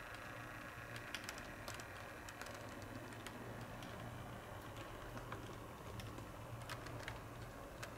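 Model train coaches rolling along the track: the metal wheels give irregular light clicks over the rail joints above a low steady hum.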